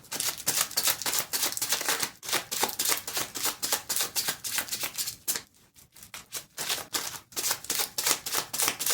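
A deck of tarot cards being shuffled by hand: a fast, dense run of card clicks that stops briefly a little past halfway, then starts again.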